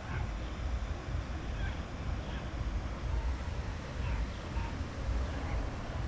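Sea waves washing onto a beach under a steady rumble of wind on the microphone, with faint voices of people in the distance.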